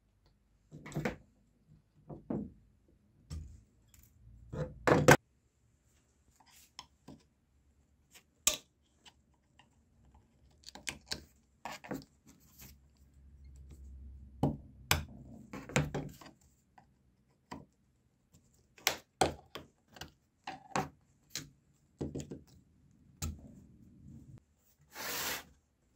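Screwdriver and hands working at a cloth-covered wooden board: scattered clicks, light scrapes and knocks, the loudest a sharp knock about five seconds in, and a short rasping scrape near the end.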